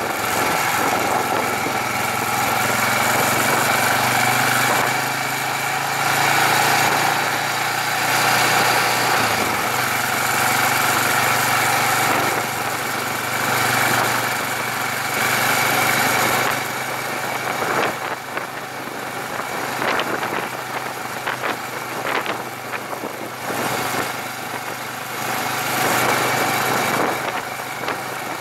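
Motorcycle engine running while the bike is ridden, heard from a camera mounted on the bike, with wind noise over the microphone. The engine note rises and falls with the throttle every few seconds.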